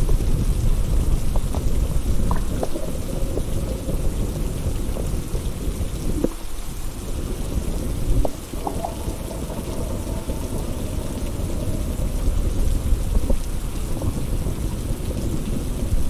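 Steady heavy rain with a continuous low rumble of thunder underneath and drops ticking close by. The rumble eases briefly about six seconds in.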